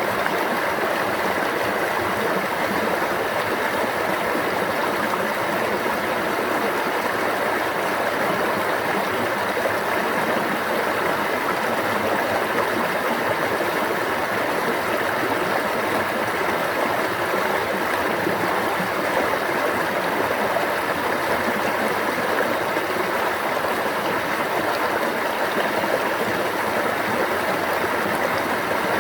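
A stream flowing and babbling, a steady, unbroken rush of water.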